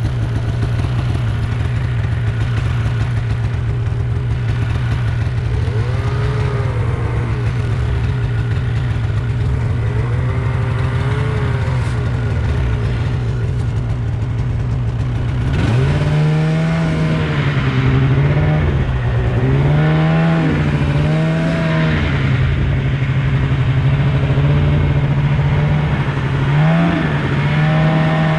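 Polaris snowmobile engine running under load through deep snow, at a steady pitch for the first half. About halfway through the throttle opens and the engine note rises, then swings up and down several times as the rider works the throttle.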